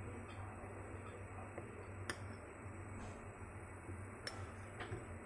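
Faint steady low hum of room noise, with a few soft clicks about two, four and five seconds in.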